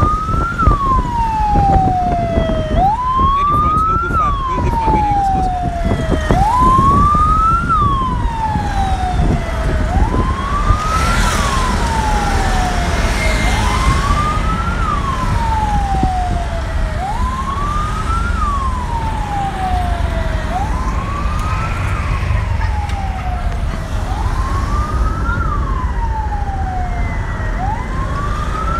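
Ambulance siren wailing in a repeating cycle, each a quick rise in pitch followed by a slower fall, about every three and a half seconds, over a steady low rumble of traffic.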